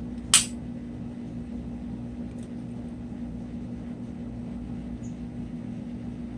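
Steady machine hum of a fan or air conditioner in a small room, with one sharp click about a third of a second in.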